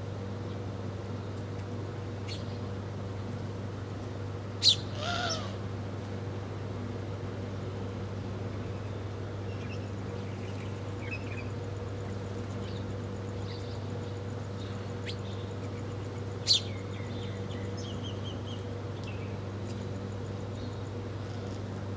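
Small birds giving short, sharp chirps: two loud ones about five seconds in and again near sixteen seconds, with a scatter of fainter calls between. A steady low hum runs underneath.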